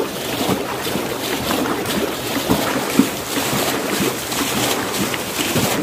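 Shallow muddy stream water running steadily over and between rocks, with a few small splashes.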